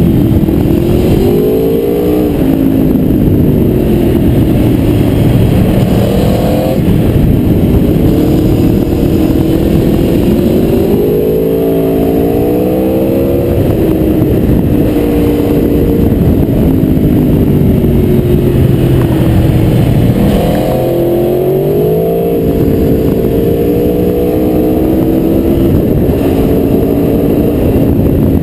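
Aprilia Tuono V4R's V4 engine on the move, its note climbing as the rider accelerates and falling away sharply when the throttle shuts for the bends, about three times.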